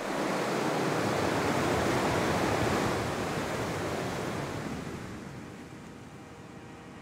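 Fast mountain river rushing over boulders, a steady loud wash of water noise that drops to a lower level about five seconds in.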